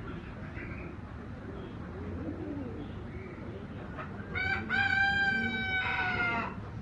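A rooster crowing once near the end, one long loud call of about two seconds. Pigeons coo softly beneath it earlier on.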